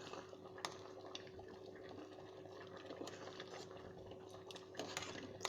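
Faint bubbling of a pot of lugaw (rice porridge with chicken bones) simmering, over a steady low hum, with a few light clicks scattered through.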